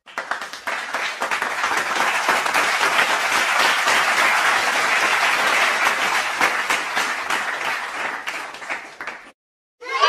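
Applause: a crowd clapping, many hands overlapping into a dense, steady patter that builds over the first couple of seconds and fades out near the end.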